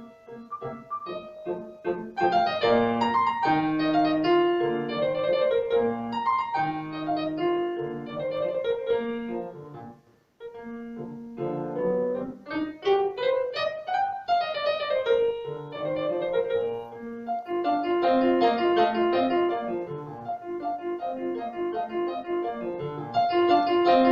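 Piano music, a melody over sustained chords, breaking off briefly about ten seconds in and then starting again.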